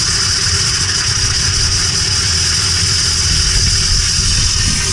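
Loud steady hiss of compressed air rushing out of an opened water service line in a meter pit, spitting water mist, as the line is blown out and its air pressure let off for winterizing.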